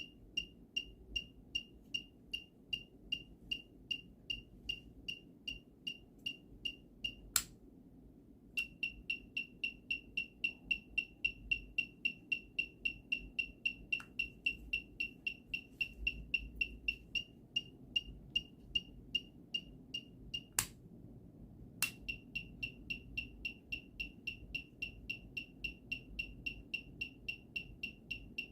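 Piezo buzzer of a homemade bike turn-indicator circuit beeping a high, steady tone in time with the flasher, two to three beeps a second, faster in the middle stretch. It stops twice for about a second, each time with a sharp click of the switch.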